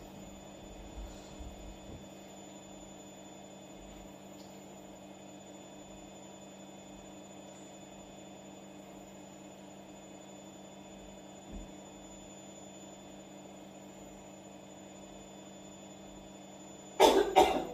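A steady low hum with a thin, faint high-pitched whine and a couple of soft knocks. Loud sounds break in suddenly near the end.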